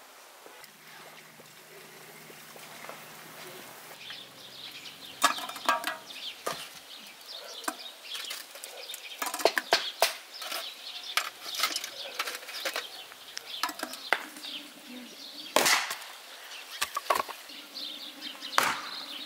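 Axe chopping firewood, with two heavy blows in the last few seconds. Before them comes a run of lighter sharp clicks and knocks.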